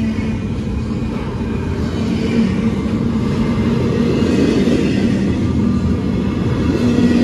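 Double-stack intermodal well cars rolling past close by: a steady rumble of steel wheels on the rails, with a low hum that comes and goes.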